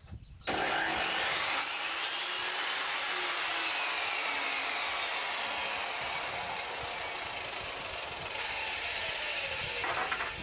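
Electric power saw cutting a wooden batten to length. Loud motor whine and cutting noise start about half a second in. The whine climbs in pitch over the first couple of seconds, then falls slowly, and the sound stops just before the end.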